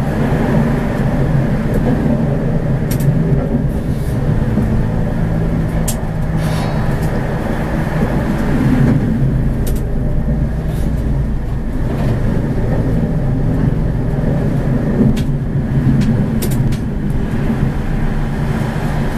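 A Prague tram running along its track, heard from the driver's cab: a steady low rumble and hum of wheels and motors, with several short sharp clicks.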